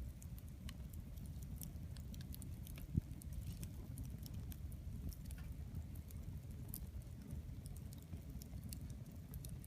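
Wood fire crackling: scattered sharp pops and snaps over a steady low rumble, with one louder low thump about three seconds in.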